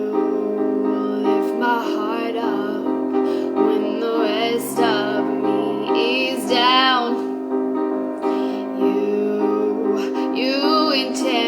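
Music: held keyboard chords with a woman's voice singing short wordless phrases over them, wavering with vibrato.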